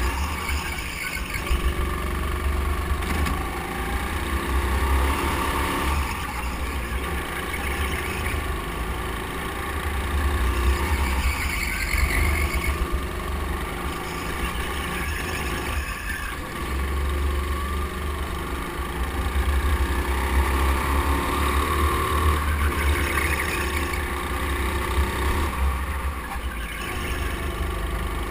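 Indoor go-kart motor running at speed around the track, its note rising and falling through the corners over a heavy low rumble.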